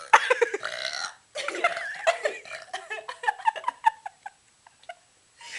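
A person burping on purpose: a long, loud burp lasting about a second, then a few seconds of choppy, broken burping sounds that trail off about four seconds in.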